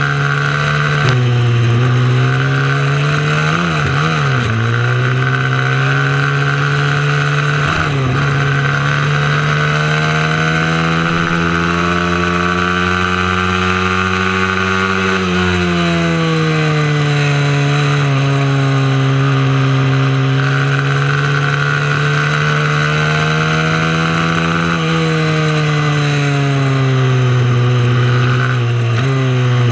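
Mini moto racing motorcycle engine running hard under race load, its pitch climbing steadily for several seconds and then dropping sharply about halfway through as the throttle comes off, then rising and falling again.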